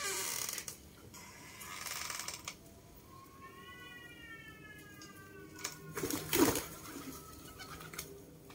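A cat meowing: one long, slowly falling meow about midway, with bursts of rustling noise before it and a short loud burst of noise after it.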